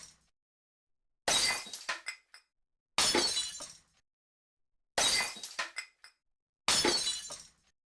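Glass smashing, four times about two seconds apart: each a sudden crash that fades over about a second, with a few small pieces clinking after it.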